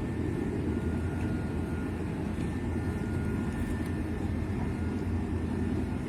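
Steady low rumble of a boat's engine running, with a faint whine on top.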